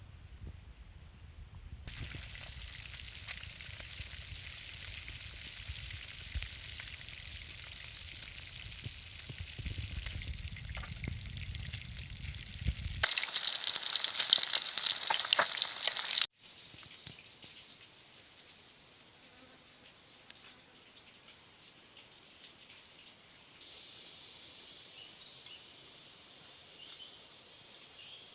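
Insects buzzing and chirping, with the sound changing abruptly several times. A loud rushing hiss fills a few seconds midway. It is followed by a steady high insect tone, and then short high chirps repeating about every second and a half over a high hiss.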